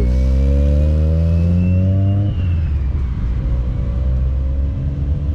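Car engine accelerating, its pitch rising steadily for about two seconds, then falling off abruptly. After that it runs on at a lower, rougher note.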